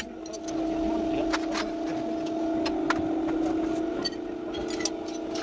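A steady mechanical hum at one pitch, with many short clicks and knocks of tools and metal parts being handled.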